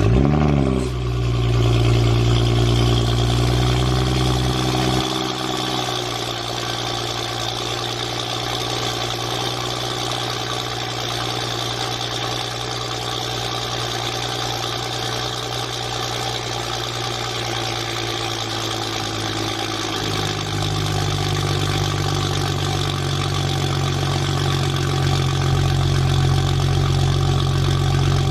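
An engine catches and settles into a steady idle. The idle drops to a lower speed about five seconds in and rises to a higher speed again about twenty seconds in.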